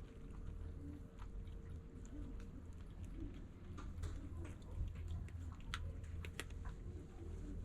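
A cat chewing its food, with irregular small clicks and crunches of eating over a steady low rumble.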